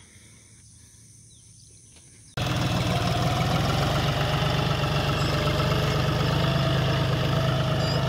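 Diesel farm tractor engine running steadily under load while pulling a furrowing implement through tilled soil. It starts abruptly a little over two seconds in, after a faint, quiet stretch.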